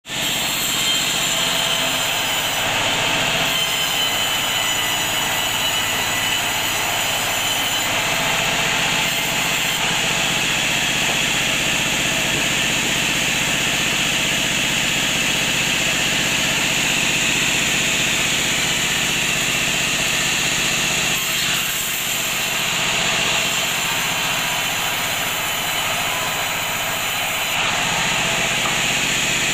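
Bandsaw running steadily and cutting along a length of teak as the piece is fed through, a continuous loud mechanical whir with a high whine over it.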